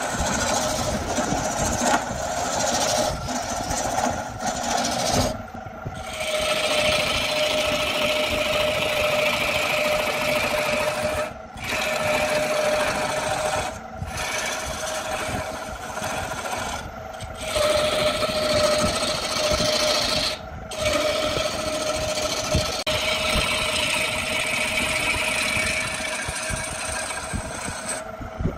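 Wood lathe running with a steady tone while a tool works the spinning wood, making a scraping hiss. The hiss breaks off briefly about five times as the tool is lifted off.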